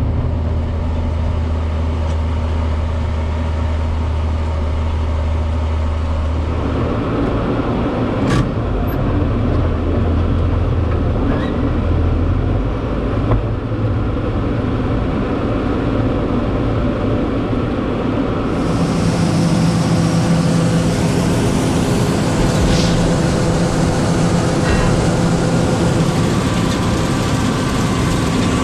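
Heavy farm machine's diesel engine running steadily under harvest work. The low hum shifts about seven seconds in, and a louder hiss with a higher tone joins about eighteen seconds in.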